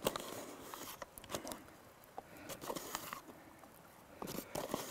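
Faint scraping and soft rustling as self-raising flour is scooped into a small measuring cup and levelled off with a spoon, with a few light clicks of the spoon against the cup.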